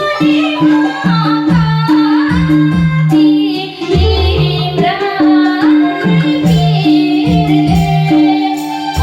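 Nepali folk-style song music: a gliding melodic lead over a repeating drum and bass beat.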